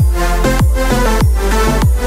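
Background electronic dance music with a steady deep kick-drum beat, a little under two beats a second, under sustained synth chords.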